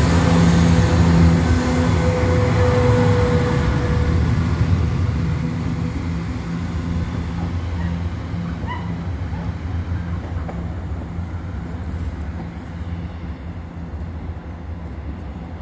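Northern class 170 Turbostar diesel multiple unit's underfloor diesel engines drumming as the train moves off and away along the line. The drone is loudest at first, with a steady hum, and fades gradually as the train recedes.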